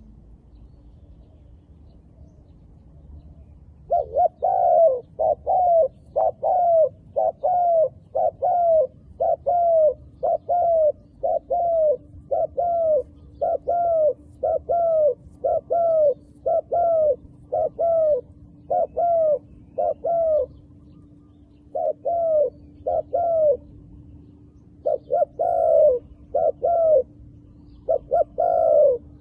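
Dove cooing: a long series of short, arching coo notes, about two a second, beginning about four seconds in and broken by a few brief pauses. A faint steady low hum lies underneath.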